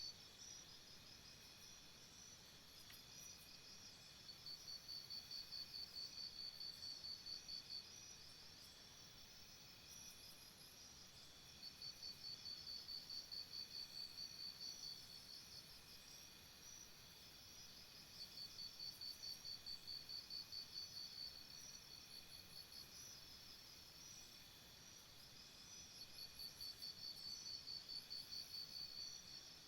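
Faint jungle insect chorus of steady high-pitched trills. Over it, one insect's rapid pulsing trill sounds in four bouts of about three to four seconds each, roughly every seven seconds.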